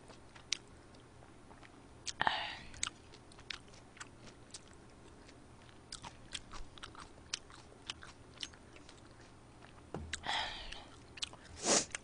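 Close-miked eating sounds: soft wet clicks of chewing a mouthful of food, with a louder sip of soup from a spoon about two seconds in and again near the end.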